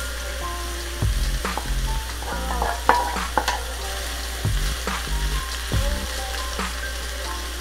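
Baby bok choy and shiitake mushrooms sizzling in a hot oiled nonstick pan, stirred and tossed with a wooden spatula, with repeated short scrapes and knocks of the spatula against the pan.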